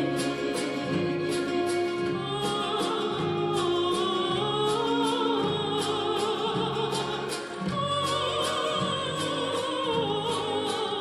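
Uyghur folk song: a voice singing with wide vibrato over instrumental accompaniment, with a steady percussive beat.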